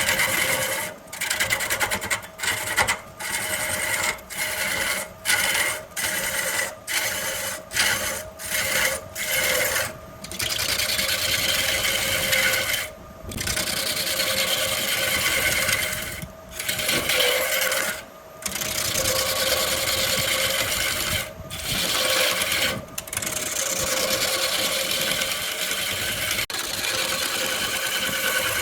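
Wood lathe running with a tool cutting the spinning wood, a steady mechanical whir with a constant tone. It stops and restarts many times in quick succession over the first ten seconds, then runs in longer stretches.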